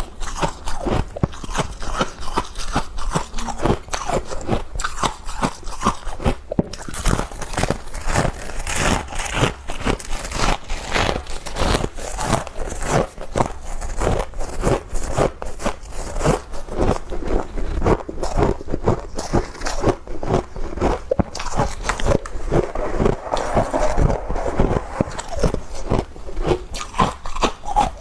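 Freezer frost being bitten and chewed close to the microphone: dense, continuous crunching.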